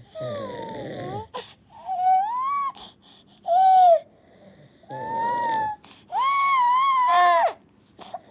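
Baby crying: about five wailing cries, each rising and falling in pitch, with short catch-breath pauses between them.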